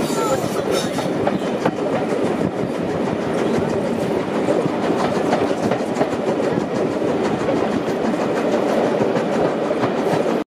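Carriages of a steam-hauled passenger train rolling steadily along the track, with the continuous rumble and clatter of wheels on rail.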